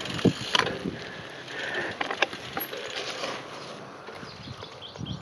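Mountain bike climbing a dirt track: tyres rolling over dirt and gravel, with a few sharp clicks and rattles from the bike's chain and frame.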